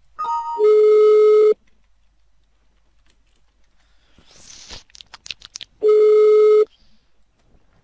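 Telephone ringback tone heard from the calling end, as a call rings out unanswered. A steady low beep lasts about a second and comes twice, some five seconds apart. A quick two-note beep comes just before the first one, and some rustling and a few clicks fall between the two.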